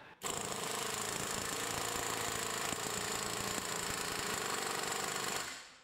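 Astro Pneumatic Onyx air palm impact wrench hammering in a rapid, steady rattle against the load of a torque dyno. It starts abruptly, runs evenly for about five seconds and dies away near the end.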